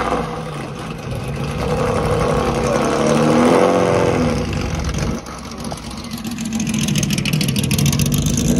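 Engine of a 1950s open sports racing car running at low speed as the car pulls slowly away, with a throttle blip about halfway through that rises and falls in pitch. Another engine grows louder near the end.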